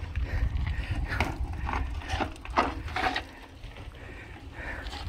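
Mountain bike rolling over rough, rocky ground: irregular clicks and rattles over a low wind rumble on the microphone, thinning out after about three seconds.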